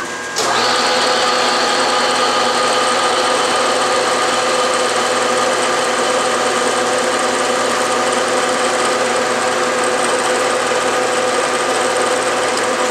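Bridgeport milling machine running with a steady whine as its spindle drives a center drill into a metal plate, starting a hole. The sound comes in about half a second in and then holds level.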